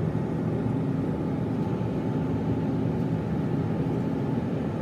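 Airbus A350-900 cabin noise: its Rolls-Royce Trent XWB engines at low thrust as the aircraft lines up for takeoff, heard from inside the cabin as a steady hum and rush with faint low tones.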